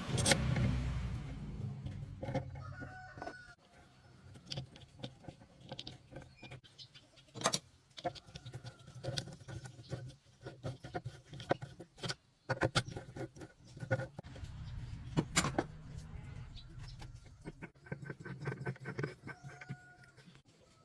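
Chickens clucking in short calls now and then, with a few sharp knocks, the loudest near the start, and a low hum that comes and goes.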